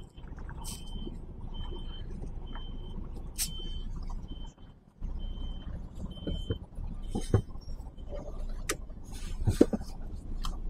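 Lorry reversing alarm beeping about once a second, one high tone each time, over the steady low running of the diesel engine as the rig backs a trailer. The beeps stop about seven seconds in, followed by a few knocks and clicks.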